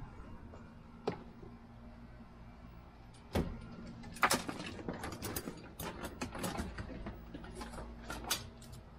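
Loose wires being handled and pulled about: one small click about a second in, then a busy scatter of short clicks and rustles from about three seconds in, over a faint steady hum.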